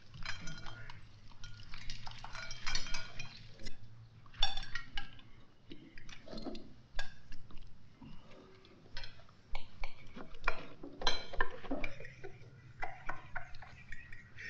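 Plates and cutlery clinking and clattering in quick, irregular strokes as several people grab food from platters on a crowded dinner table.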